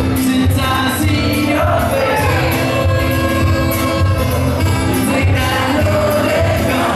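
Live folk-pop band music with a steady beat and a man singing into a microphone.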